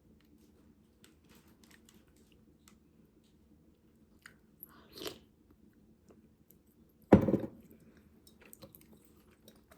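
Someone eating soup: faint chewing and small mouth and spoon clicks, with a short, louder noise about seven seconds in.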